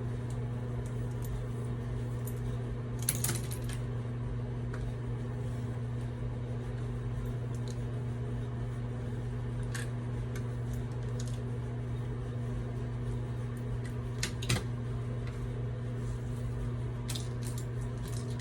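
Steady low electrical hum, with a few light clicks and clacks scattered through, the sharpest about three seconds in and about fourteen seconds in, from hair styling with a flat iron.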